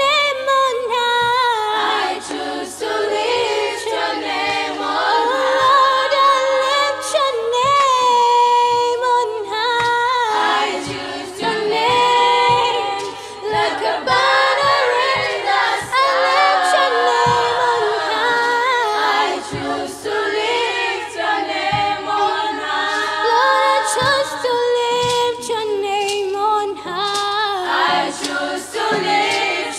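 A small group of women singing a worship song together a cappella, one lead voice at the microphone with the others singing along.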